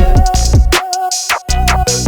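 Background music with a steady electronic beat: deep kicks, sharp percussive hits and a sustained melody line.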